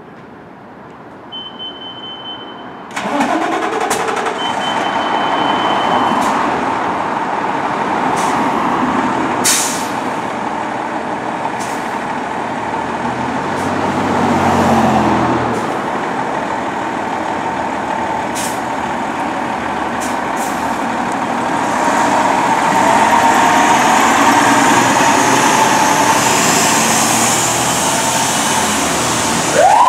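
Fire engine's diesel engine starting with a sudden rush about three seconds in, then running steadily, with a few sharp air-brake hisses, and louder near the end as it pulls away. Two long, steady, high beeps sound before the engine starts.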